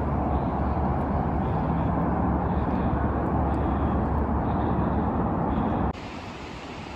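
Steady roar of distant road traffic with a low hum underneath. About six seconds in it drops sharply to a fainter hiss.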